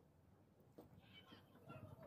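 Near silence: faint background, with a few faint high chirps in the second half.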